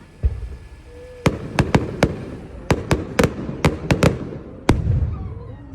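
Fireworks going off: about a dozen sharp bangs in an irregular series, some coming in quick clusters, with crackling between them.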